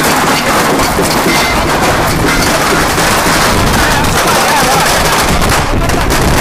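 A long string of firecrackers going off, a dense, rapid, unbroken crackle of small bangs.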